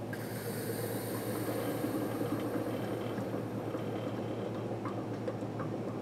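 Cory vacuum coffee maker finishing its drawdown: air hisses and gurgles through the filter as the last coffee is sucked from the upper bowl down the stem into the lower pot, and the vacuum breaks. The hiss starts suddenly, and a few small clicks come near the end.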